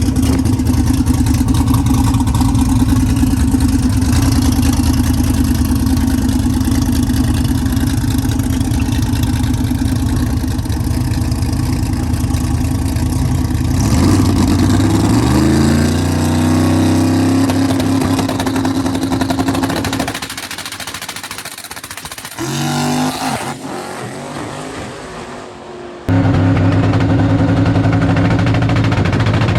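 Race car engine running loud and steady, then climbing in pitch through several gear changes from about 14 seconds in. About 20 seconds in the engine sound drops away abruptly, with one brief blip, and a loud steady engine returns suddenly near the end.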